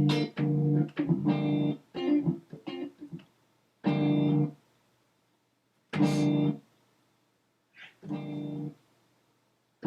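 Chopped slices of a guitar sample triggered one after another. It opens with a quick run of short chord fragments, then three single slices follow with silence between them, each starting and cutting off abruptly.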